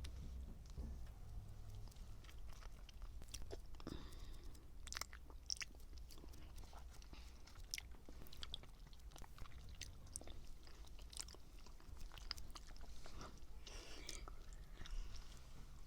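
A person chewing strawberry mochi, with irregular soft wet mouth clicks.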